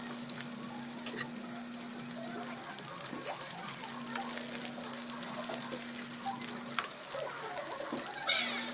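Food frying in hot oil in a pan: a steady sizzle with scattered small pops and crackles.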